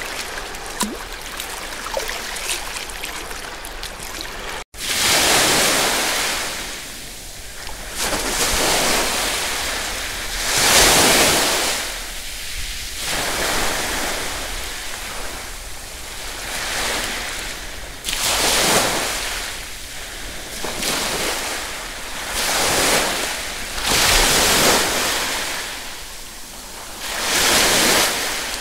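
Sea waves breaking on a shore, one swell of surf after another every two to three seconds. For the first few seconds there is instead a steadier hiss with small clicks, which cuts off abruptly into the waves.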